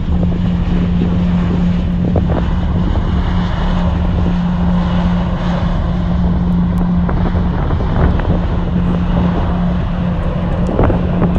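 Airbus A340-300 airliner heard from inside the cabin while it rolls on the ground: a steady hum from its CFM56 engines over a broad rumble of airflow and wheels, the hum briefly dipping about two-thirds of the way through.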